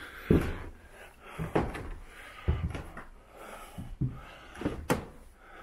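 Footsteps going up old wooden stairs: a series of dull wooden thuds, roughly one a second, with the boards knocking and creaking under each step.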